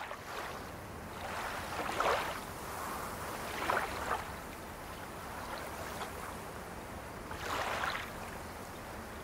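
Water waves washing against a shore: a steady hiss with a few gentle surges that rise and fall.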